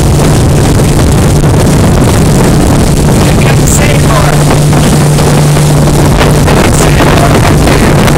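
Evinrude 30 hp E-TEC two-stroke outboard running steadily at cruising speed as the boat planes along, a constant low drone under heavy wind on the microphone and rushing water from the wake.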